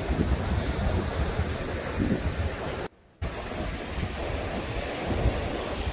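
Wind buffeting the microphone over the wash of surf on a sand beach, with a short drop to silence about three seconds in.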